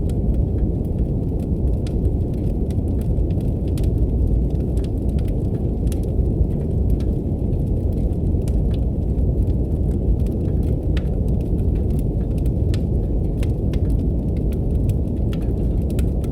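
Brown noise, a deep steady rushing hiss with nothing high in it, layered with the irregular crackles and pops of a wood fire burning in a fireplace, several snaps a second.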